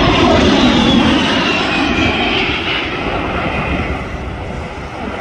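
Airplane engine noise as an aircraft flies past: a loud rush with a high whine that falls in pitch over the first couple of seconds, then fades as the plane moves away.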